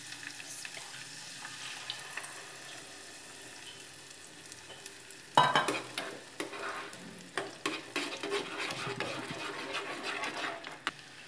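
Ghee sizzling gently in a small nonstick saucepan with fried cashews and raisins. About five seconds in, beaten egg goes into the hot ghee with a sudden louder burst of sizzling. A spoon then stirs and scrapes the pan with irregular clinks as the egg scrambles.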